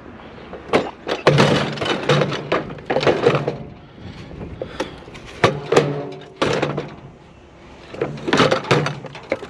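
Scrap items being handled and loaded onto a trailer: a string of knocks, clatter and thuds, with a quieter stretch past the middle.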